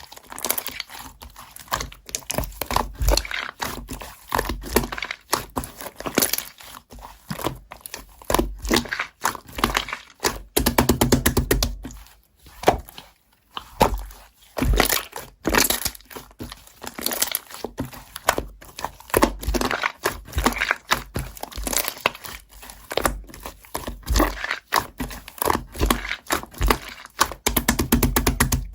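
Slime being squeezed, stretched and poked by hand, giving dense, irregular crackling and clicking, with a quick run of clicks partway through.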